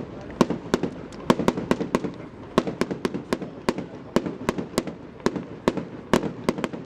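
Fireworks finale: shells bursting in quick irregular succession, several bangs a second, over a continuous rumble.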